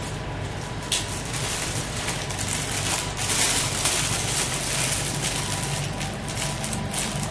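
Thin plastic bag crinkling and rustling as gloved hands open and handle it, with a sharp crackle about a second in, over a steady low hum.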